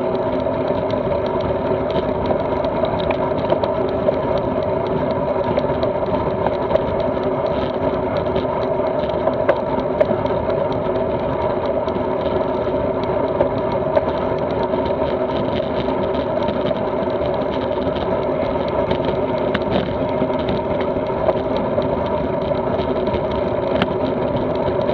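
Steady riding noise of a road bike on a rough lane, picked up by a camera mounted on the bike: continuous tyre and wind rumble, with a few sharp knocks from bumps.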